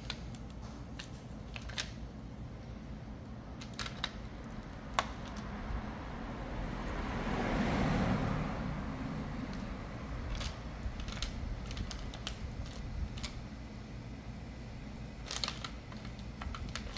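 Scattered light clicks and taps of a lithium battery cell and tools being handled for a bend test. A noisy swell rises and fades over about three seconds around the middle.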